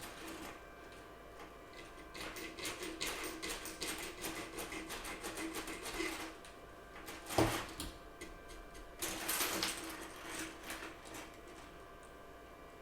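Corsair mouse button's plastic being sanded down by hand: quick rasping strokes in two spells, with a single sharp knock between them.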